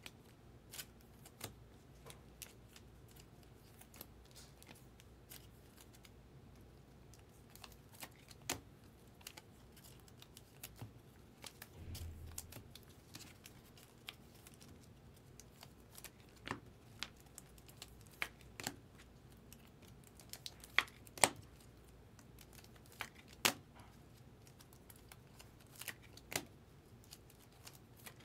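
Trading cards being slid into clear plastic sleeves and handled: scattered light clicks, taps and crinkles of plastic, with a brief low bump about halfway through.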